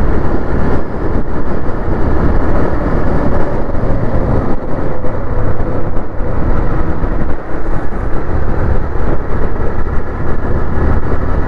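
Wind rushing over the microphone of a moving motorcycle, a loud, steady rumble, with the TVS Raider 125's single-cylinder engine running underneath at highway speed.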